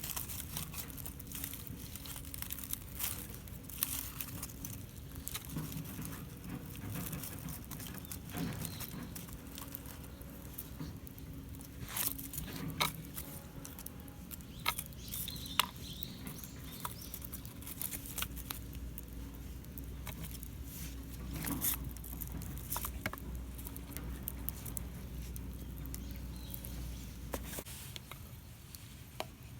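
Wood campfire crackling, with irregular sharp pops and ticks of varying loudness.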